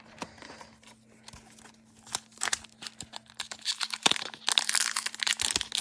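Foil trading-card pack wrapper crinkling and being torn open, a run of crackles that grows much denser about two seconds in.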